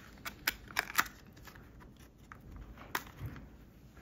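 Clear plastic clamshell packaging of laptop-size RAM sticks being handled, giving sharp plastic clicks and crinkles: several in the first second and one more near three seconds in.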